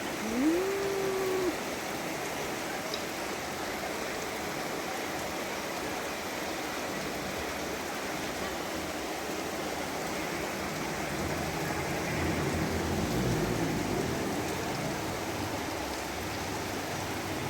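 Floodwater from an overflowing stream rushing steadily. About half a second in, a short rising tone holds for about a second. Around twelve to fourteen seconds in, a low rumble swells and fades.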